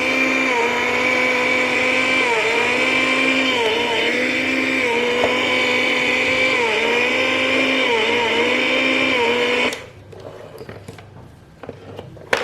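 Toy Stihl chainsaw's electronic engine sound effect playing through its small speaker: a steady buzzing engine note that dips in pitch every couple of seconds, as if the throttle is eased and opened again. It cuts off abruptly about ten seconds in, followed by a faint click near the end.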